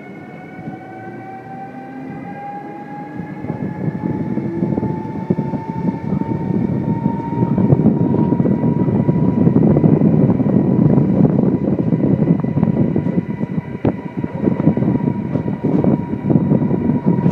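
Electric train accelerating, heard from on board: a whine from the electric drive rises steadily in pitch, then levels off about halfway through. Under it the rumble of the wheels on the rails grows louder, with a single click near the end.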